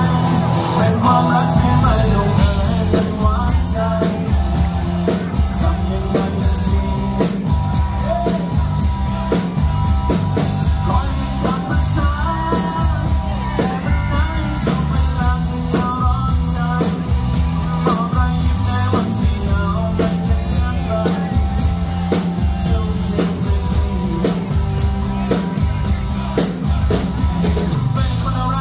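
Live Thai rock band performing: a male lead vocal sung over electric guitar and a drum kit with a steady beat.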